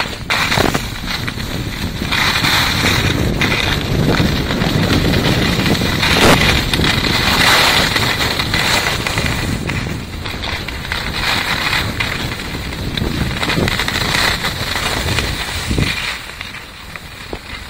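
Wind buffeting a handheld phone's microphone, mixed with the hiss and scrape of skis on packed snow during a downhill run. The noise is loud and uneven and drops off near the end.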